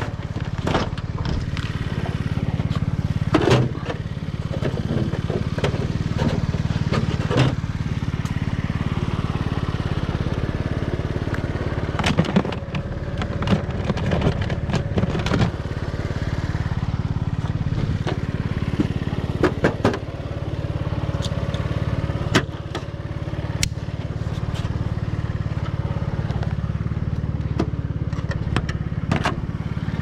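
Items being handled and moved about in a dumpster: scattered knocks and clatter, busiest around the middle, over a steady low hum of a running engine or motor.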